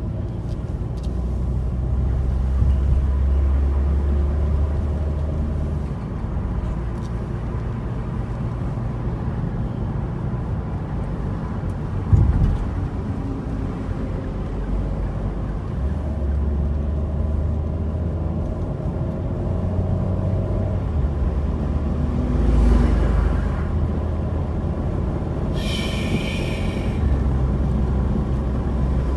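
Car driving on city streets: a steady low road-and-engine rumble, with a single knock about twelve seconds in and a brief high-pitched sound near the end.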